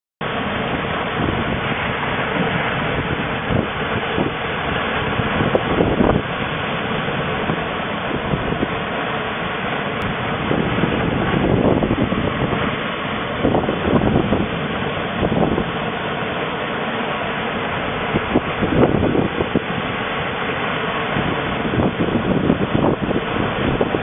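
Seawater rushing along and breaking over a surfaced submarine's bow as it moves through the waves, swelling in surges every few seconds, mixed with heavy wind noise on the microphone.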